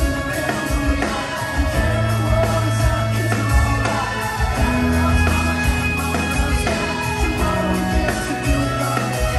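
Live rock band playing through a venue PA, heard from the audience floor: guitars over drums and a steady, sustained bass line.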